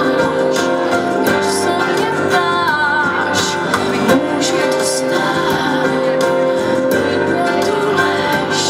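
A woman sings a melody with held, wavering notes over acoustic guitar accompaniment in a live performance.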